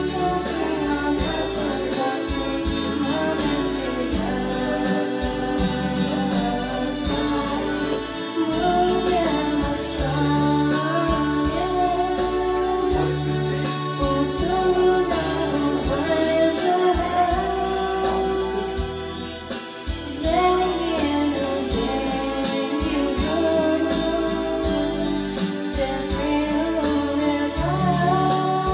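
A female voice singing a slow song into a microphone over a backing track of bass and drums.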